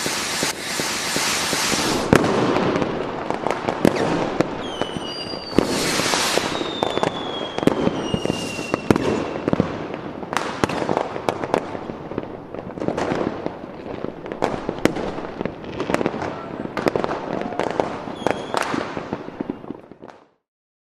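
Diwali firecrackers and fireworks going off: a dense crackle of many sharp bangs, with a few falling whistles from whistling fireworks about five to nine seconds in. The sound cuts off abruptly near the end.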